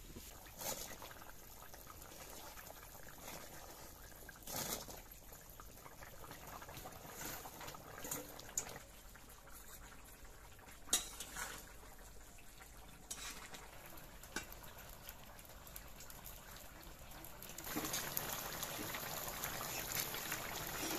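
Fish and vegetable curry bubbling in an iron karahi over a wood fire, with a few sharp clicks along the way. Near the end the boil grows louder into a fuller, steaming hiss.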